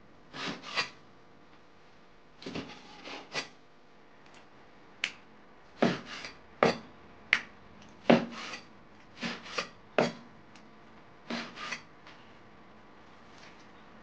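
Chinese cleaver cutting raw mutton into chunks on a wooden cutting board: about sixteen irregular strokes, often in pairs, each a short slice through the meat or a sharp knock of the blade on the board. The cutting stops near the end.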